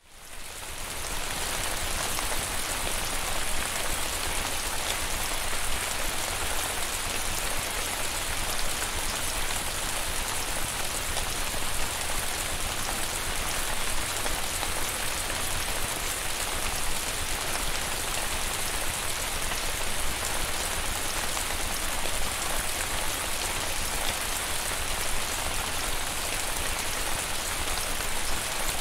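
Steady rain falling, a dense, even hiss of many drops, fading in over the first second.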